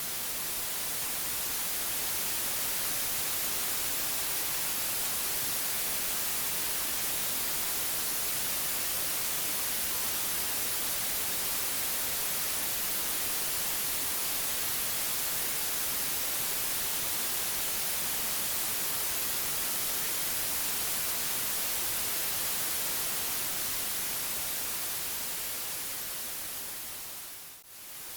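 Steady white noise: an even, unbroken hiss across the whole range, brightest in the high frequencies. It briefly fades out and comes straight back near the end.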